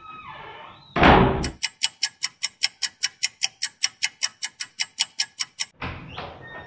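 A door slams shut about a second in. Then comes a fast, even ticking, about six ticks a second, for some four seconds, cut off by a short whoosh near the end.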